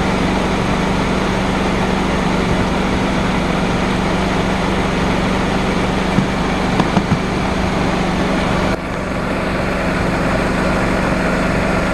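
2004 Mercedes C230's 1.8-litre four-cylinder engine idling under the open hood with the AC compressor and fan running, while refrigerant from a can is charged into the low side; a steady hum, with a few light clicks about seven seconds in and the overall noise dropping a little about nine seconds in.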